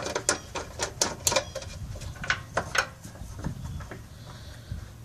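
Irregular metal clicks and clinks of a bolt and nut being fitted by hand into a steel engine mount bracket, several a second for the first few seconds, then fewer.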